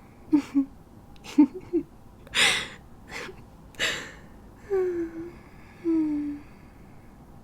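A woman's wordless vocal sounds: a few short voiced blips, a sharp breathy gasp about two seconds in followed by more breaths, then two short falling 'mm' hums.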